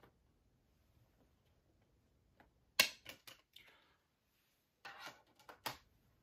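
Clicks and taps from handling Blu-ray discs and a SteelBook case: one sharp click about halfway through, a few lighter clicks after it, and another short run of clicks near the end.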